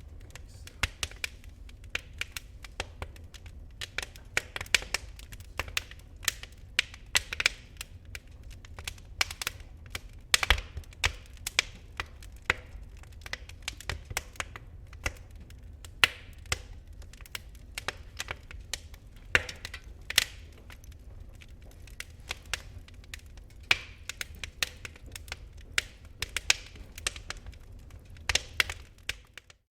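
Wood fire in a fireplace crackling: irregular sharp cracks and pops over a steady low rumble of the slow-burning embers.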